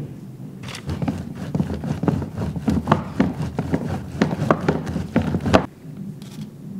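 Block of Colby jack cheese grated on a box grater: quick repeated rasping strokes, about four or five a second, that stop suddenly near the end.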